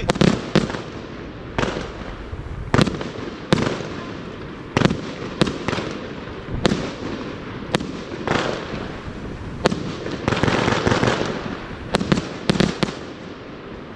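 Vuurwerktotaal 'Underground' firework battery firing shot after shot into the sky, one sharp report about every second, with spells of crackling from the bursting stars. A quick cluster of bangs comes near the end.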